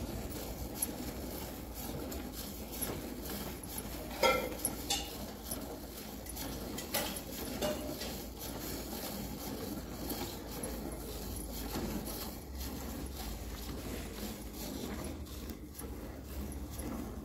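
Water buffalo being hand-milked into a steel bucket: repeated squirts of milk spattering into the frothy milk, with a louder ringing knock against the bucket a little after four seconds in.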